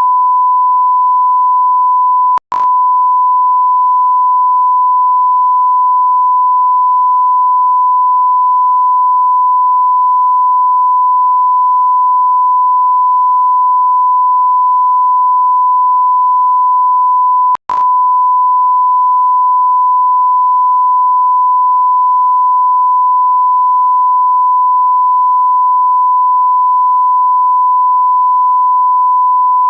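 Steady electronic beep: one unbroken pure tone at a single high-middle pitch, like a censor bleep or test tone. It cuts out for an instant with a click about two and a half seconds in, and again about seventeen and a half seconds in.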